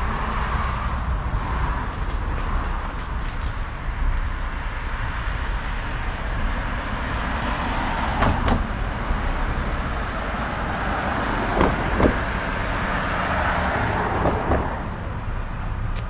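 Steady road noise of a motor vehicle, a continuous tyre hiss over a low rumble, with a few short knocks about eight and twelve seconds in.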